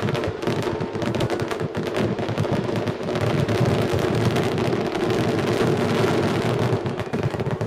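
Finale barrage of aerial firework shells, many bursting in rapid succession so the bangs run together into a continuous rumbling crackle. It stops abruptly just before the end.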